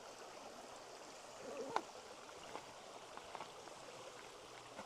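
Faint steady rush of running water, with a few light clicks.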